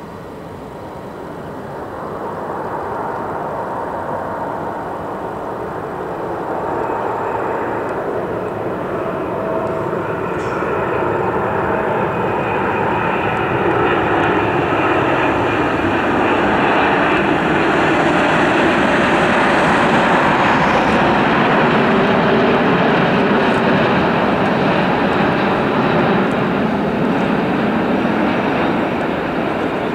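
Airbus A330-300 airliner on final approach with its landing gear down, the noise of its twin jet engines building steadily as it comes closer, loudest a little past halfway and easing slightly near the end. A faint steady whine fades out about a third of the way in.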